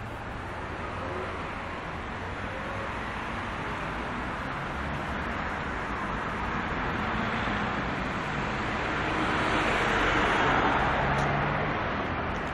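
A road vehicle passing along the street: steady tyre and engine noise that slowly grows louder, peaks about ten seconds in, then fades.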